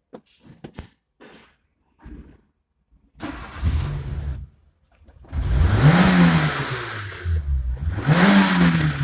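A few light clicks, then a Renault Megane's 1.4 16-valve K4J four-cylinder petrol engine, heard from inside the cabin. The starter cranks briefly about three seconds in, the engine catches about five seconds in, and it is revved up and back down twice.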